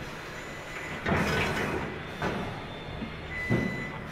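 Helicopter assembly-floor workshop noise: a steady low machinery hum with irregular clanks and hissing bursts of pneumatic tools. A thin high tone is held briefly a little before the end.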